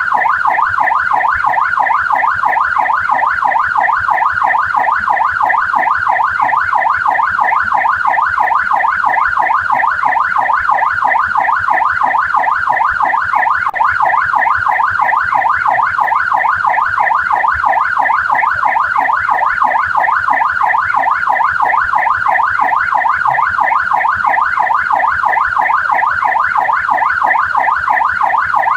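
Australian police car siren in yelp mode: a fast, steady up-and-down wail that repeats several times a second without a break.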